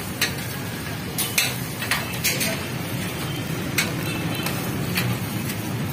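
Metal spatula scraping and clinking on a flat griddle, with a handful of sharp, irregular clicks over the steady sizzle of eggs frying.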